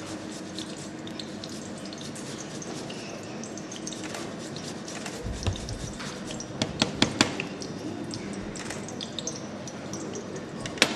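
Faint steady crackle of small ticks, like shallow frying oil spitting in a pan, with a low thump about five seconds in and a quick run of four sharp clicks a little later, then one more click near the end.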